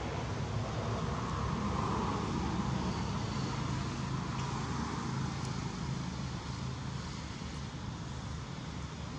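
A steady low rumble of a motor vehicle's engine, swelling over the first few seconds and then easing off.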